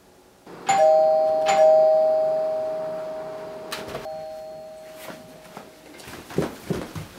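Doorbell chime: a two-note ding-dong, struck twice about a second apart, its tones ringing on and fading slowly. Scattered clicks and knocks follow near the end.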